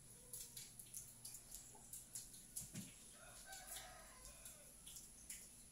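A faint animal call about three seconds in, lasting about a second, over a quiet room with scattered small clicks.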